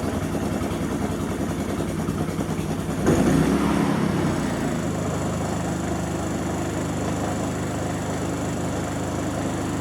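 Harbor Freight Predator 3500-watt inverter generator's small single-cylinder engine running on its first start. About three seconds in it gets louder and uneven for a couple of seconds, then settles back into a steady run.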